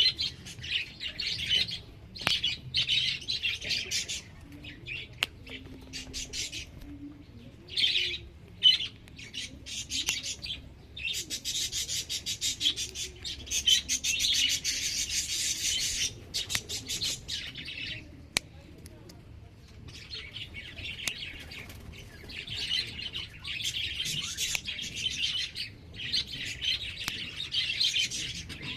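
Small birds chirping busily in dense bursts of rapid, high chirps, with a lull of a few seconds past the middle before the chirping resumes.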